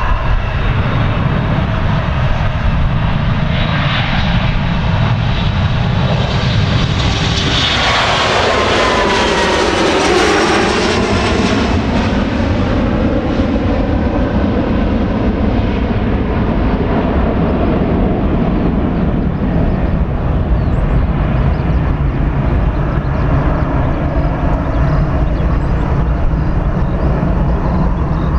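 Boeing 737-400's CFM56-3 turbofan engines at takeoff power as the airliner takes off and passes: the jet noise swells to a peak about ten seconds in, with a whine that falls steeply in pitch as it goes by, then settles into a steady low rumble as it climbs away.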